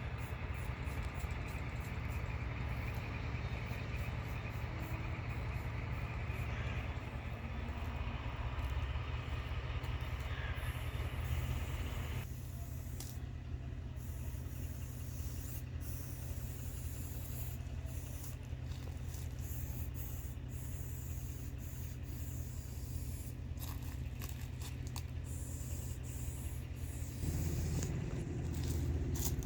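Aerosol spray-paint cans hissing in short strokes against a train, over a steady low rumble. A continuous hiss stops suddenly about twelve seconds in.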